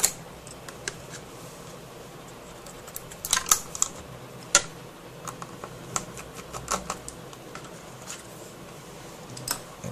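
Scattered plastic clicks and taps from an Asus Eee PC 1015 netbook's case and screen panel being handled while its hinge screws are undone with a small screwdriver. There is a cluster of clicks about three and a half seconds in and a single sharp click about a second later.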